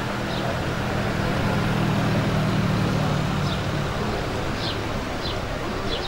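Street traffic: a vehicle engine hum swells and then fades over the first few seconds, over steady road noise. A few short, high chirps come in the second half.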